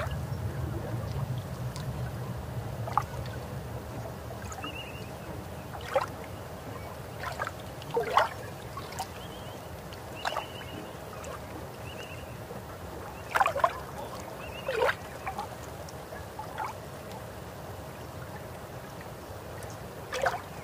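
Cast net being hauled out of the river, with faint dripping and splashing of water. Over it, birds give short sharp calls every few seconds, several in quick succession around the middle.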